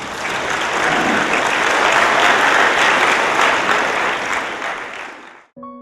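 Audience applauding, many hands clapping together. It stops abruptly near the end as soft piano music comes in.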